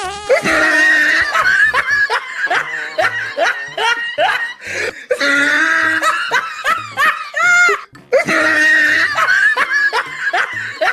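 Hearty laughter in quick repeated bursts, with a brief break a little before the eight-second mark.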